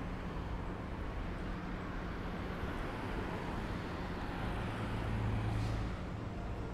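City street traffic noise: road vehicles running past in a steady low rumble, one engine's hum swelling about four and a half seconds in and easing off near the end.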